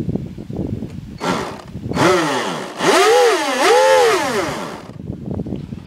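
Twin 550-size brushed electric motors of an RC boat, run out of the water, revving up and down in throttle bursts. The whine rises and falls in pitch several times, with a short burst a little over a second in and the longest, loudest run in the middle.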